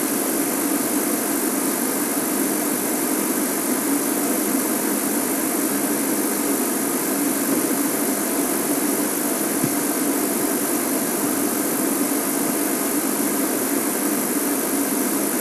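Game-drive vehicle's engine idling steadily under a constant hiss.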